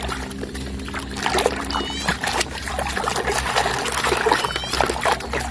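Water trickling and splashing as a muddy toy vehicle is washed, with many small clicks and knocks of plastic being handled.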